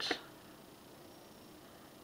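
Quiet room tone, with the tail of a spoken word at the very start.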